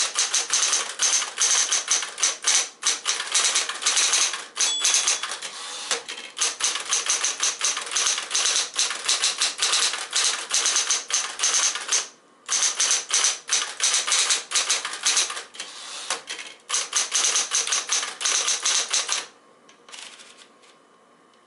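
Smith-Corona Coronet Electric portable typewriter typing fast runs of keystrokes, running on fresh drive belts, with brief pauses about 6 and 12 seconds in. Near the end the typing stops, leaving a faint steady hum and a few light clicks.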